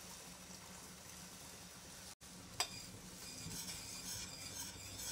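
Soy-honey braising sauce bubbling in a stainless steel pot. About two and a half seconds in a spoon clinks sharply against the pot, then scrapes and stirs through the sauce as cornflour solution thickens it.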